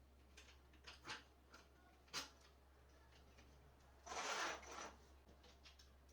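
Quiet handling of a hand sanding block: a few light clicks and knocks, then one short rasping stroke of sandpaper over wood about four seconds in.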